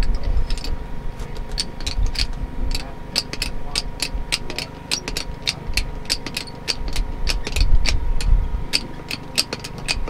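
A jack being worked under a school bus to press a wooden board up against the body: a run of short, sharp clicks, several a second and unevenly spaced, over a low rumble.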